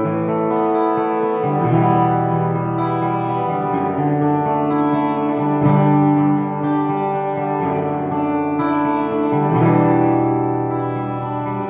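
Solo acoustic guitar playing an instrumental accompaniment: chords struck about every two seconds and left to ring, with picked notes between them.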